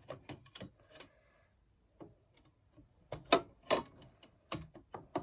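Smith-Corona Corsair manual typewriter clacking as it is worked by hand: irregular sharp clicks, a few in the first second and the loudest pair about three to four seconds in.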